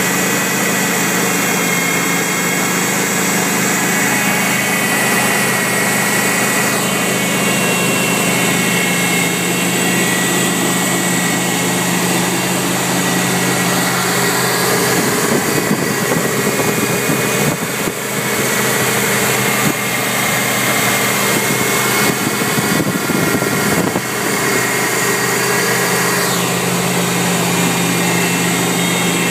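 1992 GMC Sierra pickup's gasoline engine idling steadily, heard close up in the open engine bay, with a steady high whine over it. Some rustling and knocks break in for several seconds in the middle.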